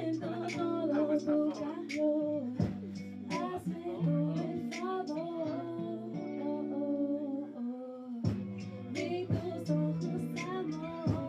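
A live performance of a slow, chill Spanish-language song: a singer's voice over a backing track of held guitar-like chords and a steady beat.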